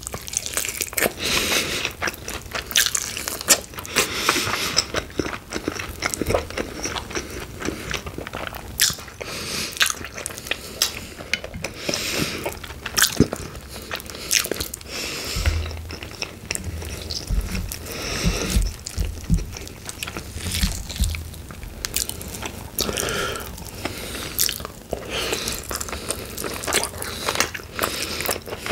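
Close-miked biting and chewing of sauced chicken wings, with many crunches and wet clicks and a few low thumps midway.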